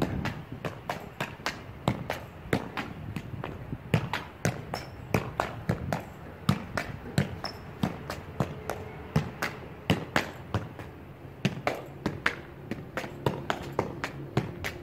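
Football being juggled with the feet: a steady run of dull thuds as the ball is struck, about two to three touches a second.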